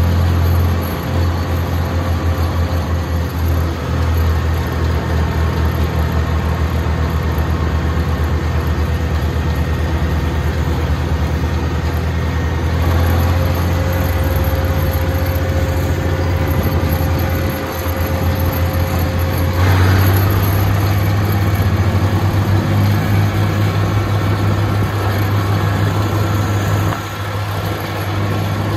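Oliver 1750 tractor engine running steadily at road speed, heard from the driver's seat, its note stepping up louder about two-thirds of the way through.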